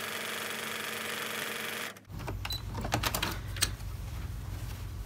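Electric sewing machine stitching steadily, then stopping abruptly about two seconds in. Scattered clicks and fabric rustling follow as the sewn piece is pulled out from under the presser foot.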